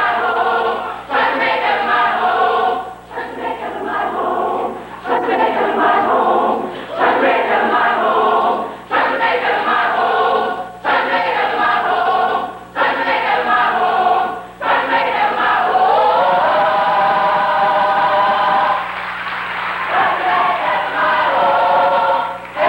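High school choir singing in short phrases that break about every two seconds, then holding one long chord for several seconds before singing on.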